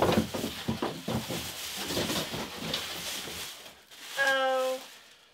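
Thin clear plastic bag crinkling and rustling as it is handled and pulled off the new sewing machine, stopping after about three and a half seconds. Near the end comes a short pitched vocal sound, about half a second long.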